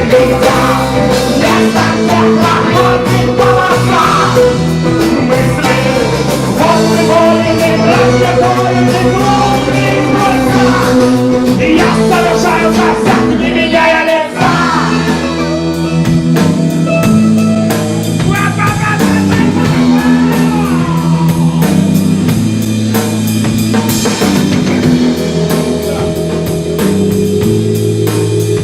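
Rock-and-roll band playing an instrumental passage: drum kit, bass and guitar under a wavering lead melody, with a brief dip about halfway through.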